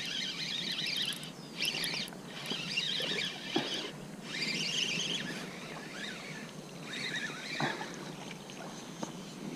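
Splashing water from a hooked blotched snakehead being fought and drawn in on a light spinning rod. The splashing comes in stretches of about a second with short pauses between them.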